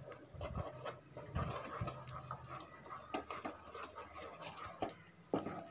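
Faint scraping and light clicks of a utensil stirring gram flour into sugar syrup in a nonstick pan.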